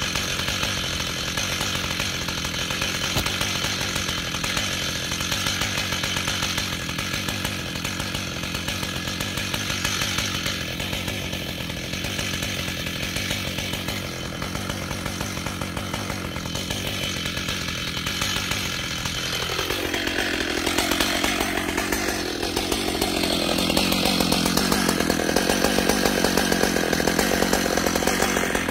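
Stihl MS880 chainsaw, a large two-stroke saw, running steadily while cutting wood. Its engine note shifts sharply about twenty seconds in, and it runs louder near the end.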